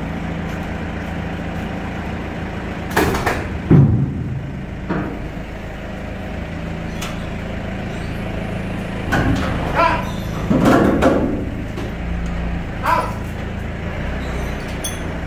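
A forklift engine running steadily while a used engine hangs from its boom on a chain inside a steel shipping container. Several metal clanks and scrapes come as the engine is moved into place, the loudest about four seconds in and again around ten to eleven seconds.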